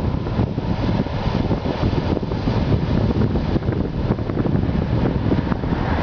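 New Holland combine harvester and John Deere tractor running together, with the combine's unloading auger going as it empties grain into the trailer alongside: a steady, loud mechanical rumble.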